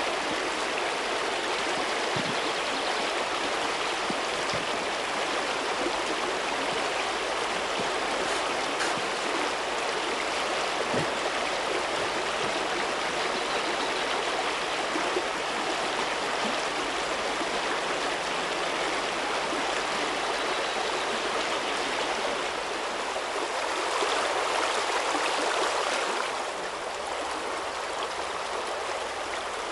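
Shallow river rushing over rocks in a riffle: a steady, even sound of flowing water, a little quieter for the last few seconds.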